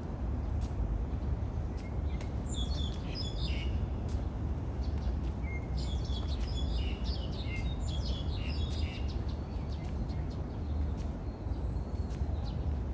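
Small songbirds chirping in quick clusters of high notes, twice: from about two and a half seconds in and again from about five and a half to nine seconds in, over a steady low rumble.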